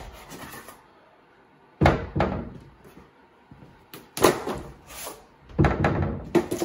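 Cardboard packaging being pulled and torn off a prehung interior door unit: several sudden loud rips and knocks, first about two seconds in, again around four seconds and near six seconds.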